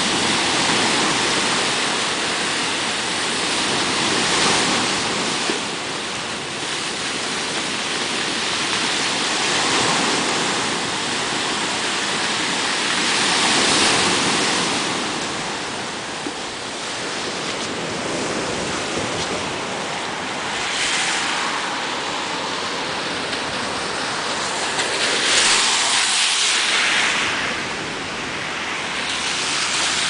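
Surf from a rough sea breaking on the shore: a continuous wash of waves that swells and falls every few seconds.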